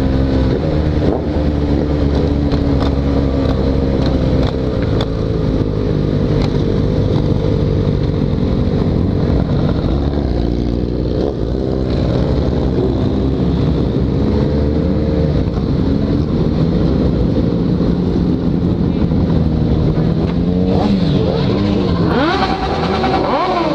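Yamaha XJ6 inline-four engine running at cruise on a motorcycle ride. Its pitch drops as it slows about ten seconds in, then picks up again. Near the end, several other motorcycle engines rev up and down around it.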